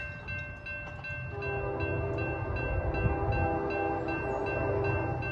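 A warning bell strikes evenly about two and a half times a second. About a second in, a locomotive's multi-chime air horn sounds and holds, over the low rumble of an approaching freight train led by GE Evolution-series diesel locomotives.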